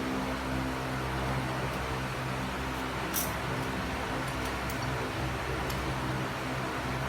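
Steady machine hum with a low electrical buzz, with a brief scrape about three seconds in and a few faint small ticks after it.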